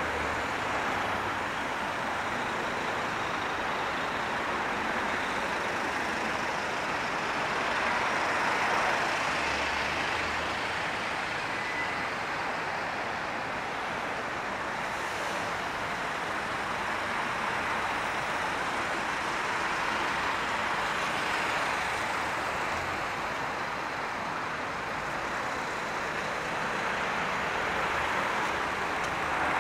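Road traffic: a steady noise of vehicles passing, swelling a little a few times as they go by.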